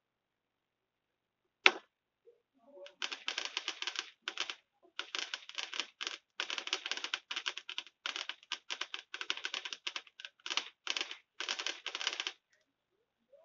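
A single sharp firework bang, then about nine seconds of dense, rapid firework crackling in clusters broken by short gaps.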